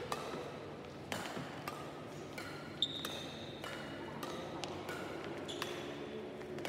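Badminton rally: racket strings hitting the shuttlecock in sharp clicks, about one every second, the loudest a little under halfway through, mixed with a few short high squeaks of shoes on the court floor.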